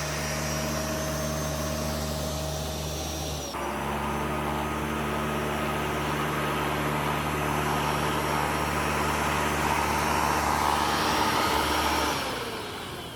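Flymo Easiglide 300 electric hover lawnmower running steadily, its motor and blade giving a vacuum-like hum. About twelve seconds in it is switched off and the motor winds down, falling in pitch and fading.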